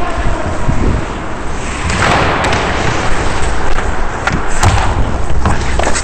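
Ice hockey play heard from a helmet-mounted camera: skate blades scraping and cutting on the ice, with sharp clacks of sticks and puck scattered throughout and a steady rumble from movement on the microphone. A louder skate scrape comes about two seconds in.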